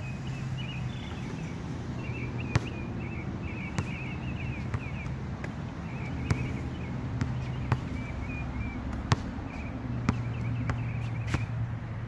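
A basketball bouncing on an outdoor hard court, about ten sharp irregular smacks. Behind it, birds chirp and a steady low hum runs.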